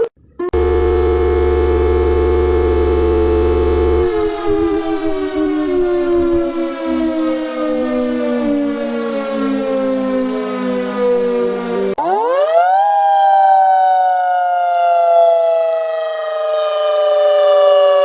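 Civil-defence-style siren alarm tones: a steady, many-toned siren with a low buzz under it, which after a few seconds starts winding down slowly in pitch. About twelve seconds in it cuts to a second siren that winds up sharply and then falls slowly.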